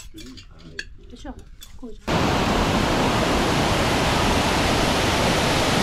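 Steady rushing of a spring-fed waterfall cascading over rocks, starting abruptly about two seconds in. Before it come a few soft clinks of cutlery on plates.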